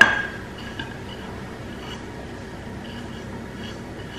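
Sugar being tipped from a small dish into a glass jar of oil: a light glass clink right at the start, then only faint soft scratching of grains sliding off the dish over quiet room tone.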